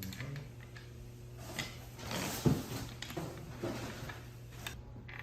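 Office chair parts being handled during assembly: scattered clicks and knocks of the armrest and bolt against the chair frame, with a louder knock about halfway through, over a low steady hum.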